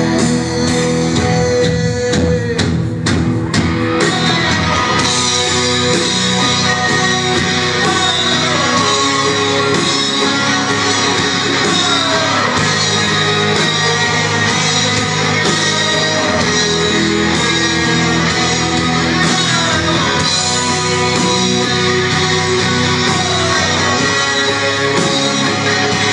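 Live rock band playing an instrumental passage of the song, with a lead guitar line full of bending, sliding notes over sustained chords, bass and drums; a short run of hard drum hits about three seconds in.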